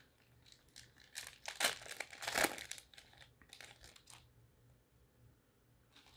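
Plastic trading card pack wrappers crinkling and tearing as a pack is ripped open, in a run of irregular crackles from about a second in to about four seconds in, loudest midway, then only faint handling.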